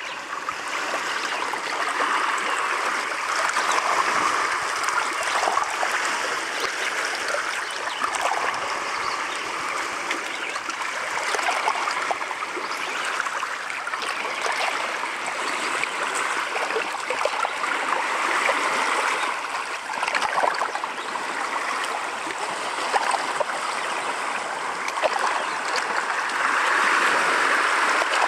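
Small lake waves lapping and splashing against the rocks at the water's edge: a continuous wash with many small splashes, getting louder near the end as the waves break more.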